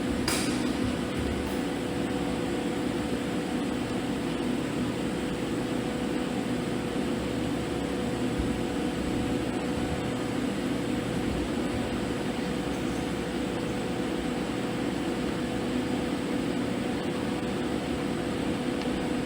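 TIG (argon) welding arc running steadily: an even buzzing hiss with a hum, after a sharp click about a third of a second in.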